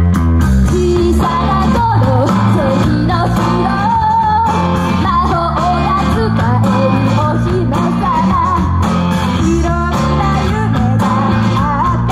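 Idol-group pop-rock song performed live, the full band-style backing with guitar kicking in suddenly right at the start and the singing coming in over it.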